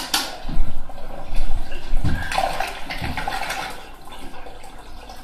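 Water running in a small bathroom, with a sharp click right at the start as a ceiling pull-cord light switch is pulled, and a few knocks during the first half; the water sound fades over the last couple of seconds.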